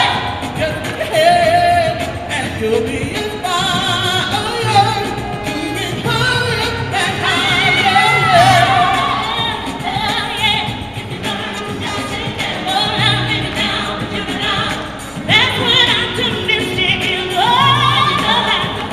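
Gospel vocal ensemble singing live with band backing: several voices carry long, wavering lines with vibrato over a steady bass.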